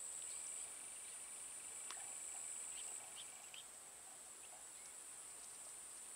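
Faint, steady high-pitched insect drone, a little quieter from about three seconds in, with a few faint clicks and small chirps over it.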